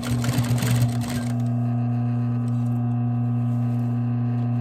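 Post-bed industrial sewing machine stitching through a leather sleeve cuff for about the first second, then only its motor humming steadily.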